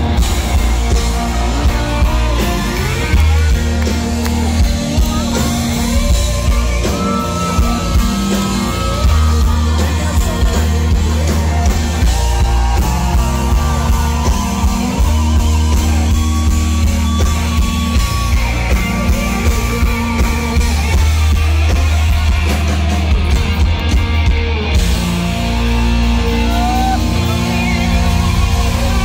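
A live country-rock band playing loudly, with electric guitars, drums, a heavy bass end and a singer, heard through the house PA.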